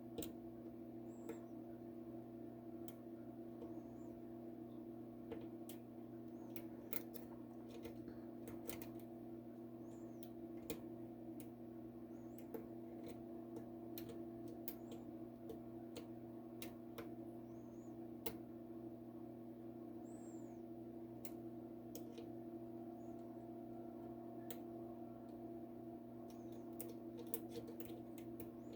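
Faint, irregular small metallic clicks and ticks of a hook pick and tension wrench working the pin stack in the keyway of a Master Lock 532 padlock, over a steady low hum.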